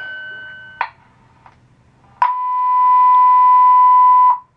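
Building fire alarm system sounding through the speaker. A steady tone fades out in the first second. After a click and a short lull, a steady lower tone starts a little over two seconds in, holds for about two seconds and cuts off sharply.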